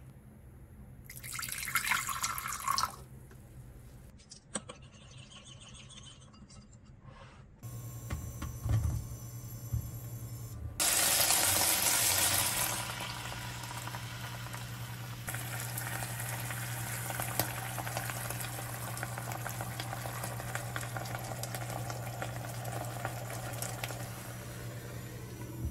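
Water poured into a bowl of soy and oyster sauce for about two seconds. Later the sauce is poured into a hot pan of browned chicken breast pieces and hisses loudly, settling into steady sizzling as beaten egg cooks around the chicken.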